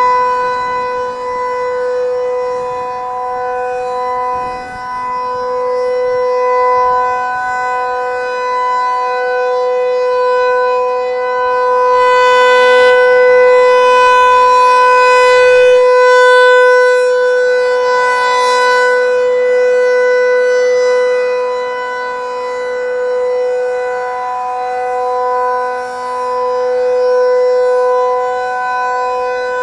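Federal Signal 508-128 rotating outdoor warning siren sounding a full alert: one steady, loud tone that swells and fades as the siren head turns toward and away.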